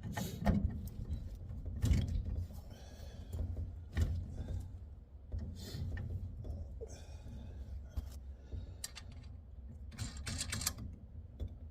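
Irregular metal clunks, clicks and scraping as a steering column is worked into place in an old Ford F100 truck.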